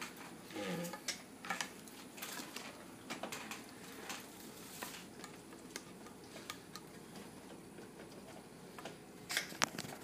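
Scattered light clicks and taps of metal being handled, as the sheet-metal heating-element access cover of an electric water heater is worked loose, with a few sharper clicks near the end.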